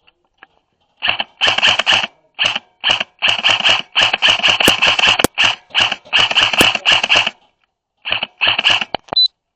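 Airsoft rifle firing rapid full-auto bursts of sharp clicks, starting about a second in, several bursts with short breaks and the longest lasting about three seconds.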